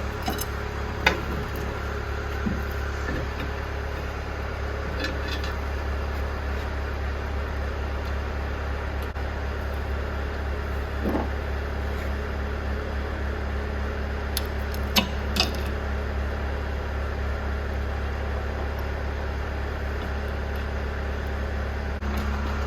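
A steady low mechanical hum, with a few sharp metal clinks over it: one about a second in, a couple around five seconds, and two close together about fifteen seconds in.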